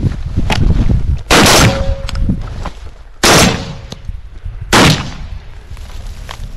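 Three loud gunshots, the second about two seconds after the first and the third about a second and a half later, with wind rumbling on the microphone between them.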